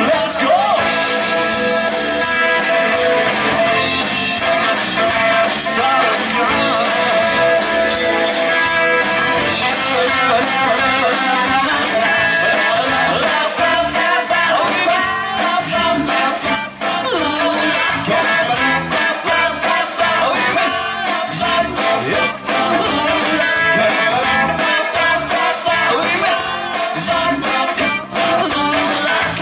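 Live rock band playing a song: electric guitar, electric bass and drum kit, with a man singing lead.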